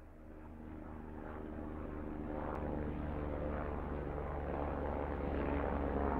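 Propeller aircraft engine running steadily, fading in and growing louder.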